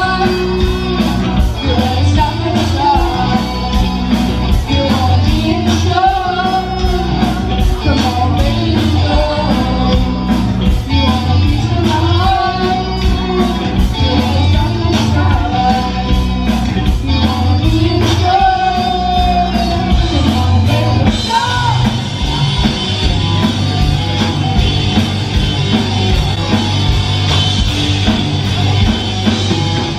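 Live rock band playing: a sung lead vocal over electric guitar, bass guitar, drum kit and keyboard with a steady cymbal beat. The singing stops about two-thirds of the way through and the band plays on.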